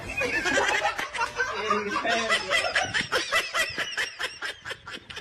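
Human laughter, with quick, evenly repeated laughs in the second half.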